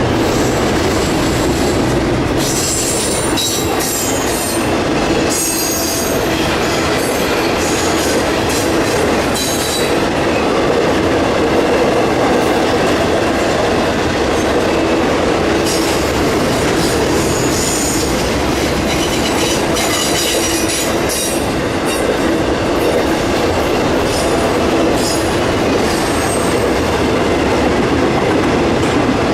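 Cars of a loaded Norfolk Southern autorack and intermodal freight train rolling steadily past, with wheels squealing high and on and off as they go by.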